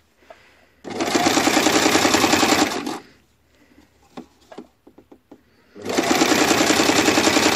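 Home sewing machine running in two short bursts of about two seconds each, stitching fast and evenly as it topstitches along the edge of a dress. A few small clicks come in the pause between the bursts.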